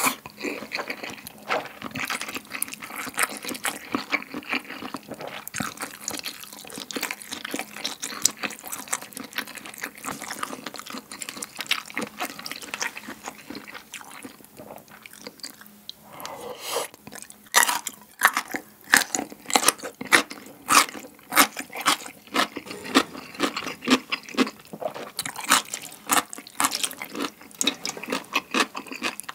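Close-miked wet chewing of soft instant noodles and kelp in broth, with small wet smacking clicks. From about halfway on, it gives way to louder, crisp crunches of chewing cubed radish kimchi (kkakdugi), coming in quick succession.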